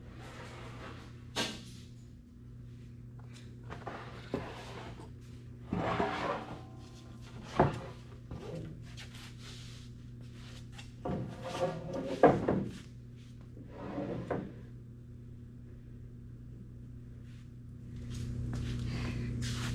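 Irregular knocks and clunks, as of objects being handled and set down, scattered over a steady low hum that gets louder near the end.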